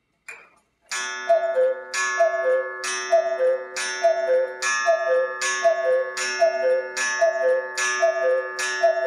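Black Forest cuckoo clock striking the hour: a brief mechanical sound as the strike releases, then the bellows cuckoo call, two falling notes, repeated about every 0.8 s, each call with a sharp metallic strike whose ringing carries on between calls.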